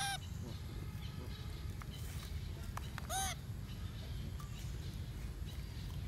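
Two short, arching coo calls of a macaque about three seconds apart, each rising and then falling in pitch, over a steady low rumble.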